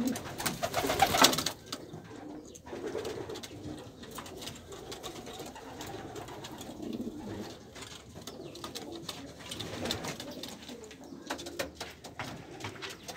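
Domestic racing pigeons cooing in a small loft: a low murmur of overlapping coos, with a brief loud rustling burst in the first second and a half.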